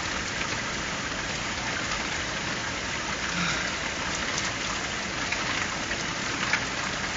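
Steady rain falling during a thunderstorm, with scattered individual drops ticking through the even hiss.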